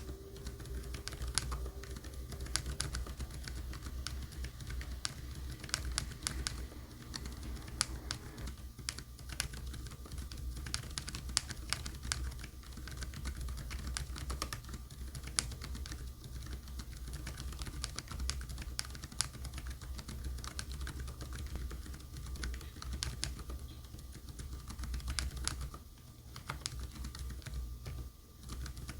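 Continuous typing on a mechanical keyboard fitted with Outemu Jade Yellow switches: a steady run of quick keystroke clacks with a couple of brief pauses near the end.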